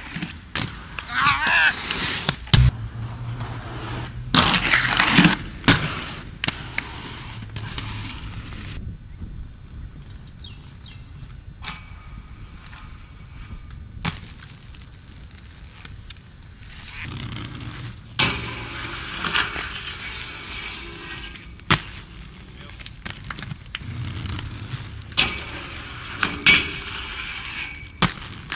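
Inline skate wheels rolling on hard ground, with sharp clacks of landings and impacts. The recording changes abruptly several times, in a series of short clips.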